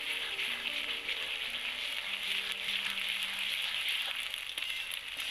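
Sliced onions sizzling loudly in hot oil in a karahi while being stirred with a metal spatula.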